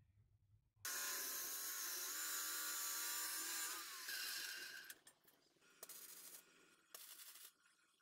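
A power tool motor starts suddenly and runs steadily for about three seconds, then stops and winds down over about a second, followed by a few faint clicks.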